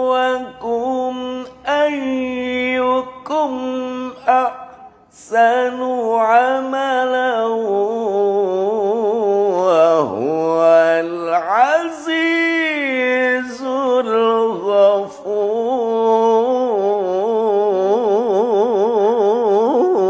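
A man's unaccompanied voice reciting the Quran in melodic tilawah style, drawing out long vowels with vibrato and wide ornamental glides. There is a short breath-break about five seconds in, a deep swoop down and back up near the middle, and fast warbling trills near the end. The voice is recorded dry, without effects, as a test of the voice after flu and a cough.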